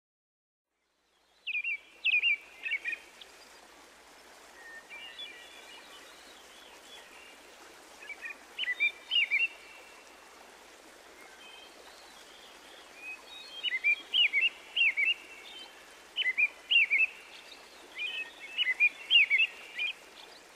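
A songbird singing short bursts of quick chirping notes, repeated every second or two over a faint steady hiss, starting about a second and a half in.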